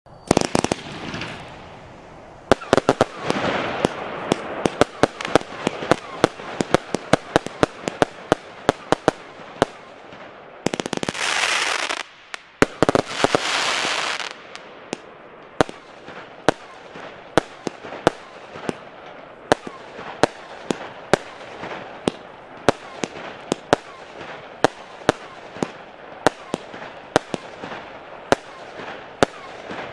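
A 236-shot consumer fireworks battery cake firing its 20/25/30 mm tubes in a fast run of sharp shots and bursts, about two or three a second, over crackling. About eleven seconds in come two stretches of loud, dense crackling hiss.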